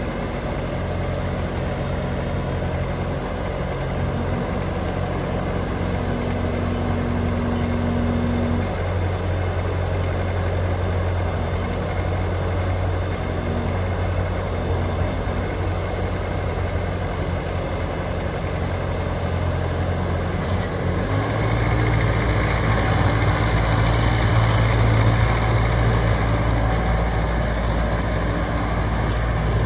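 Bobcat T450 skid steer loader's diesel engine running steadily at low speed. About two-thirds of the way through, the engine speed steps up and the sound gets louder.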